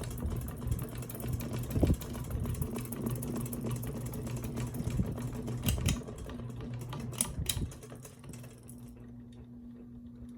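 Hugger ceiling fan running on high speed with its glass globe fitted: a steady motor hum with a rhythmic ticking that a tissue-paper gasket fix has reduced but not cured. A few sharp clicks come near the middle, after which the fan runs quieter.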